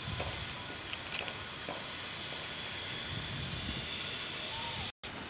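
Steady outdoor background noise: an even hiss with a low, wavering rumble and a few faint clicks, cut by a brief drop to silence near the end.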